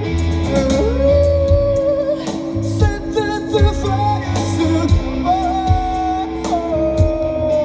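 Live rock band playing loudly through a stage PA: a male singer holds long sung notes over a driving drum beat, bass and electric guitars.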